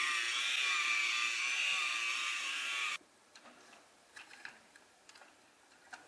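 Small electric motor of a building-block toy truck running with a steady buzzing whine, cut off abruptly about halfway. It is followed by faint, scattered clicks of plastic toy parts being handled.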